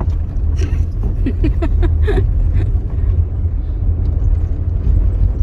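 Steady low rumble of a car driving, heard from inside the cabin, with a few brief faint sounds between one and two seconds in.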